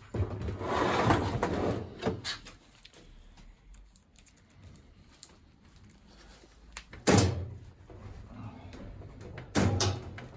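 Tumble dryer casing parts being handled during reassembly: a scraping slide for about two seconds, then two sharp knocks about two and a half seconds apart.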